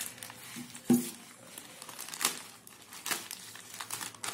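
Plastic courier mailer bag crinkling and rustling as it is handled and torn open by hand, in irregular crackles with a sharper, louder one about a second in.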